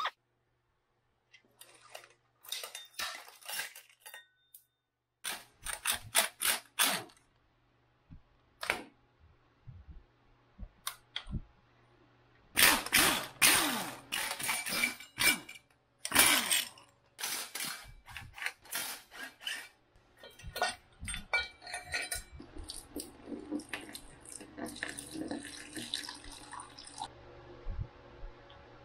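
Cordless power tool running in short bursts as it undoes bolts on a dirt bike frame, the loudest bursts near the middle. Metallic clinks and clatter of parts and tools being handled follow.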